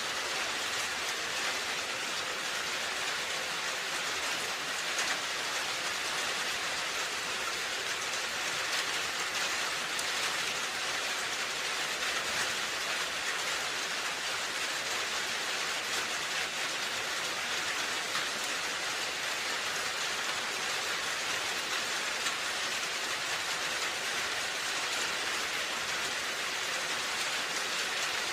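Steady rain falling on a roof: an even hiss with faint scattered drop patter, no change in strength.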